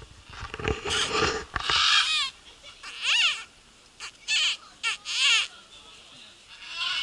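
Macaws giving a run of harsh squawks, about eight calls spread over several seconds, some of them coming in quick pairs.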